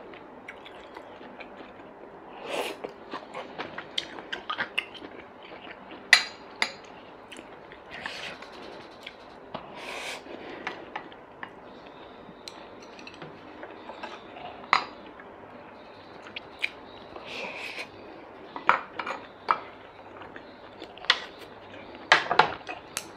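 Wooden chopsticks and a wooden spoon tapping and scraping against glazed ceramic bowls in irregular clicks, a few of them sharper, with chewing in between.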